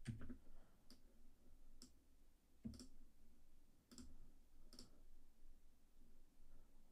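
A handful of faint computer mouse clicks, separate and roughly a second apart, over quiet room tone.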